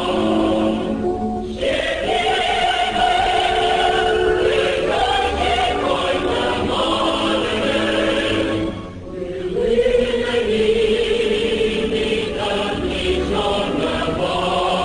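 Choir singing in long held notes, with a brief pause about nine seconds in.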